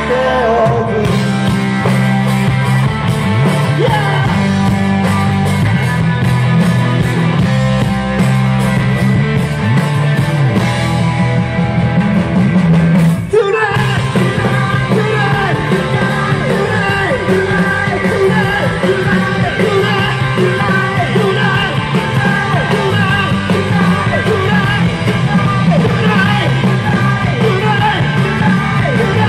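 Live rock band playing electric guitars, bass guitar and drums on a Yamaha kit, with a vocalist singing over them. The band stops for a brief break about halfway through, then comes back in.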